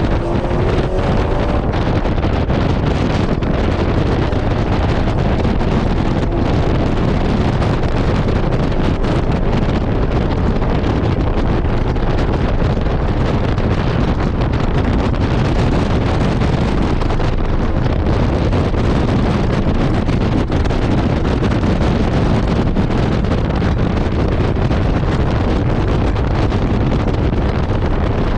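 Heavy, steady wind noise buffeting the microphone of an onboard camera on a Porsche 718 Cayman at track speed, burying the car's own sound.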